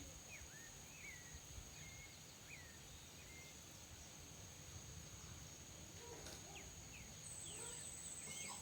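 Faint outdoor ambience: a bird repeating short chirps, over a steady high insect drone.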